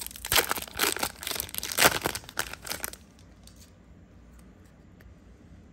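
A trading-card booster pack's wrapper being torn open and crinkled by hand: a dense run of rips and crackles lasting about three seconds.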